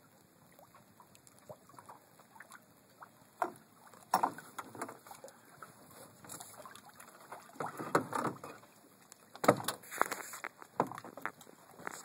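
Scattered knocks and rustling as a rope is handled at a sailboat's stern, against the hull and stern rail, with irregular short clunks that are loudest about a third and three-quarters of the way through.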